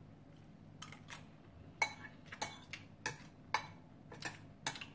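Metal spoon clinking against a ceramic bowl: about ten light, irregular clinks, some with a short ring, starting about a second in.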